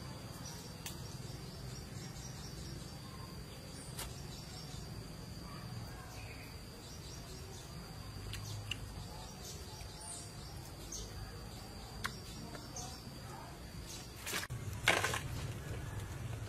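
Faint outdoor ambience: occasional short bird chirps over a steady thin high tone and a low hum. A few soft clicks, and a brief louder rustle near the end.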